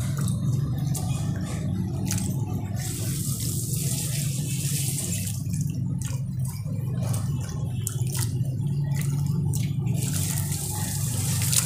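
Water sloshing and splashing in a steel bowl as hands stir and rub cut raw potato sticks, washing them before frying. A steady low hum runs underneath.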